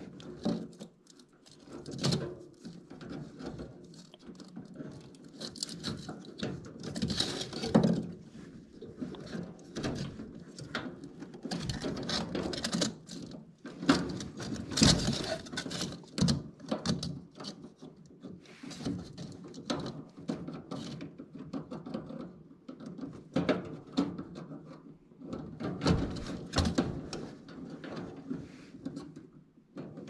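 Hand-work on the wiring at an air handler's sequencer: needle-nose pliers and wire connectors being handled, giving irregular clicks, taps and rustling with a few sharper knocks.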